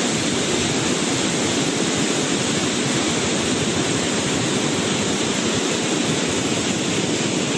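Steady, unbroken rush of the flooded Kaveri River's water in full spate.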